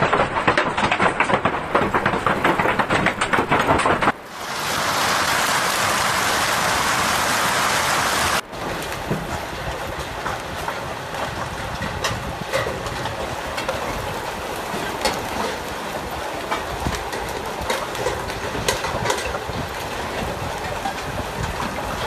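Hailstorm with heavy rain: a dense clatter of hailstones striking hard surfaces, changing about four seconds in to a steady rush of rain, then, just past eight seconds, to quieter rain with scattered sharp hail impacts.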